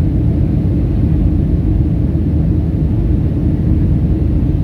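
Steady low rumble of a Boeing 737-400 airliner's CFM56-3 jet engines and airflow, heard from inside the passenger cabin.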